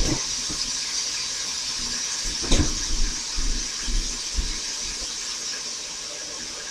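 Ground beef, onion and cream of mushroom soup mixture sizzling with a steady hiss in a cast iron skillet, with a couple of light knocks.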